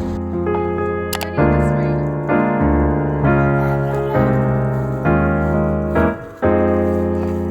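Background music: soft piano chords, a new chord struck about once a second.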